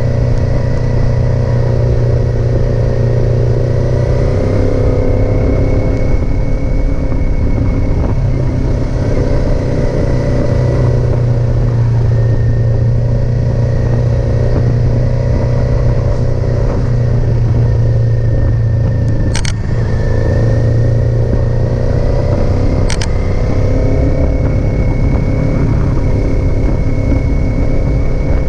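Kawasaki Z400 motorcycle's parallel-twin engine running steadily under way, its pitch drifting gently up and down. Two brief sharp clicks come about three and a half seconds apart in the second half.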